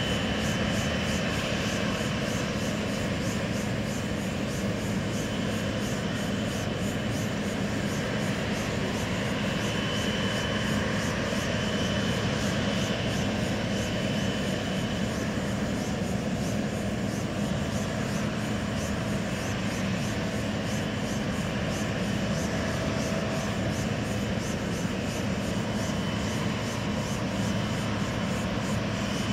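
Boeing 777 twin jet engines running as the airliner rolls along the runway: a steady jet rumble with a faint high whine that comes and goes.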